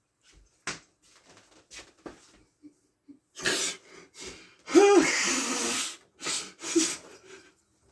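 A man's breathy, wheezing laughter: several hissing bursts of breath, the loudest about halfway through, opening with a short voiced note.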